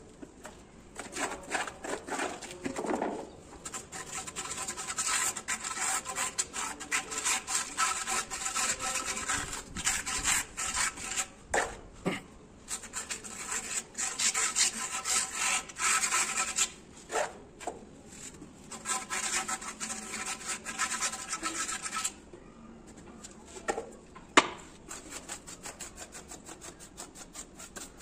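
Hand trowel scraping and spreading cement mortar across a granite slab in rapid, repeated strokes. The scraping stops about three quarters of the way through, leaving a few sharp taps and one loud click.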